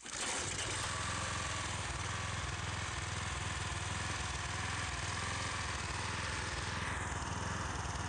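Briggs & Stratton single-cylinder engine on a gas pressure washer running steadily and evenly after a fix for rough running, low power and cutting out, which the owner calls much stronger and much smoother.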